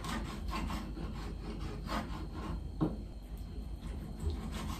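Kitchen knife sawing through cooked chicken on a plastic cutting board, in repeated back-and-forth strokes. There are sharper knocks of the blade on the board about two seconds and about three seconds in.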